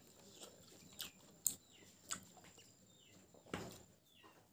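Faint, wet clicks and smacks of eating by hand: fingers working through rice and food, and a handful taken into the mouth. The loudest smack comes a little past three and a half seconds in, with a few faint high chirps between the clicks.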